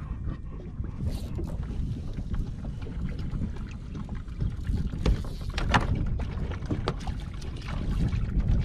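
Wind buffeting the microphone over water slapping against a small boat's hull, with a few short knocks about halfway through.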